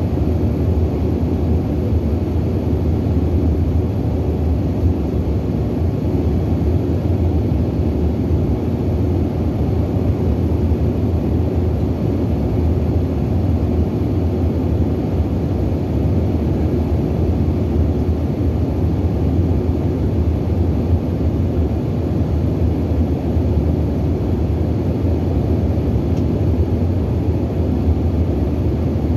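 Steady cabin noise of a CRJ900 airliner in flight: the low, even drone of its twin rear-mounted turbofans and airflow, heard from inside the cabin.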